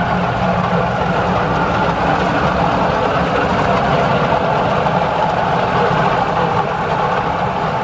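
Air-conditioner condenser fan motor running with a steady, continuous mechanical hum.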